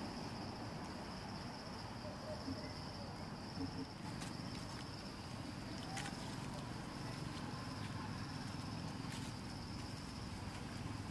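Steady high-pitched drone of insects, one unbroken tone, over a low rumbling background with a few faint clicks.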